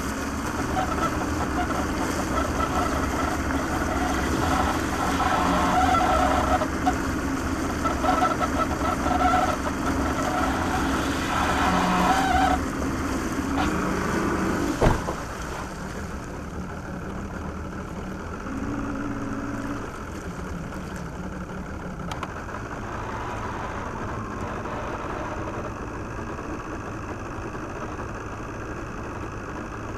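Engine running, its pitch rising and falling unevenly for the first half, with a sharp knock about halfway through. After the knock it runs quieter and steadier.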